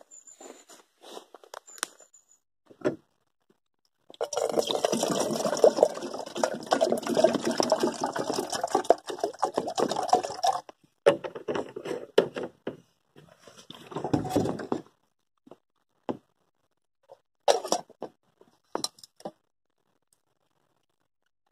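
Water poured from a plastic water carrier into a camping kettle, a steady splashing fill lasting about six seconds. It is followed by scattered clicks and knocks as the kettle is handled.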